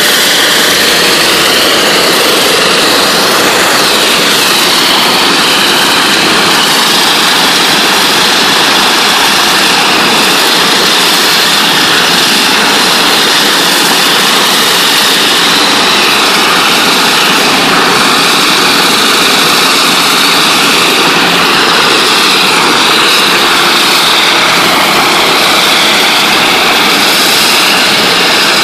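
NLB Spin Jet 40,000 psi rotating water-jet head blasting the floor: a loud, steady hiss of ultra-high-pressure water spray.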